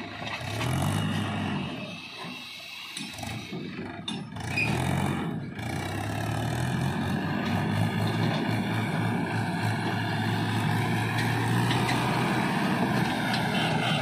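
Swaraj tractor's diesel engine running under load, revving up twice and then pulling steadily as it drives off with its tipping trolley.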